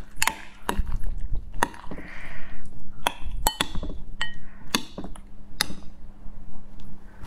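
Metal spoon stirring a sticky mix of natto, crab and raw egg yolk in a glass bowl: irregular sharp clinks of the spoon against the glass, a few ringing briefly, with a soft wet squish about two seconds in.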